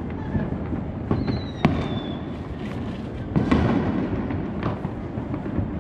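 Consumer fireworks going off on many sides: a constant rumble of distant bangs, with several sharp cracks closer by. About a second in, a high whistle falls slightly in pitch for about a second.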